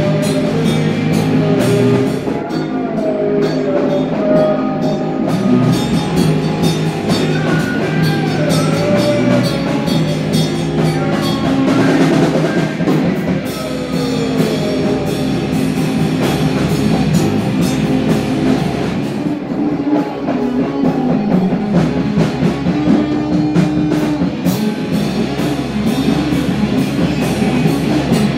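Rock band jamming: drum kit, bass and electric guitar playing together, with a lead line that slides up and down in pitch.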